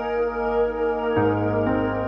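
Slow, calm background music of held tones, moving to a new chord a little over a second in and again near the end.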